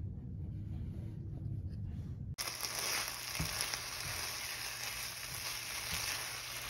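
Low, steady room rumble, then about two and a half seconds in, a stir-fry of vegetables and ground meat sizzling steadily in a nonstick frying pan, with a few short scrapes and taps of a silicone spatula stirring it.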